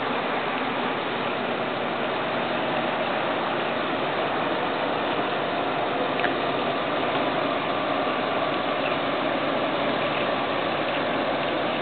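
Steady hiss of a vehicle engine running at idle, with a faint steady whine coming in about halfway through.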